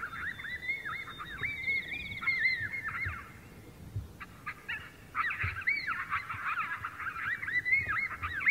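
Electronic predator caller playing a coyote pup distress sound: rapid, high, yelping whines, in two bouts with a short lull between.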